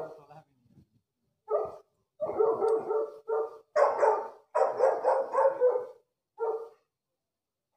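Saint Bernard dogs barking: a couple of spaced single barks, then a fast run of barks from about two seconds in until about six seconds, and one last bark.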